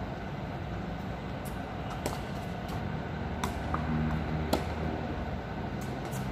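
Tennis ball being struck by rackets and bouncing during a rally: a few sharp pops, the loudest about two, three and a half and four and a half seconds in. Underneath runs a steady hum of traffic, with a low engine drone swelling around the middle.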